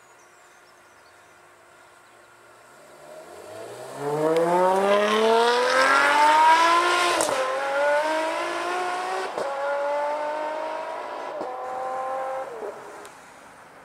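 Ferrari 599's V12 engine accelerating hard, its pitch climbing through the revs with two upshifts that drop the pitch before it climbs again. It cuts back near the end.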